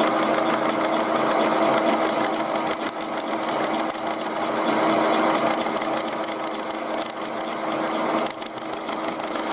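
Milling machine running, its cutter cutting through the thin tin-plate rim of a tin can under hand feed, with a fine fast ticking. The thin, loosely clamped can is vibrating under the cutter.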